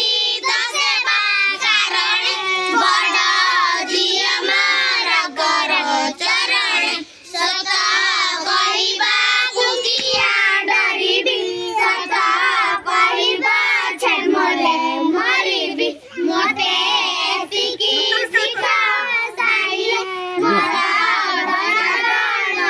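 A group of young children singing a prayer together, with short breaks between lines.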